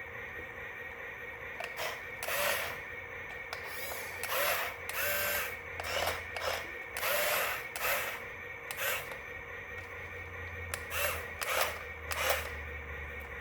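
Small electric motor whirring in about nine short bursts over a steady background hum.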